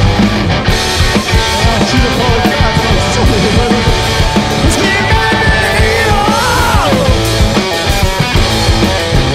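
Loud live punk-blues rock from a two-piece band: electric guitar and drum kit playing hard, with a melody line bending up and down about halfway through.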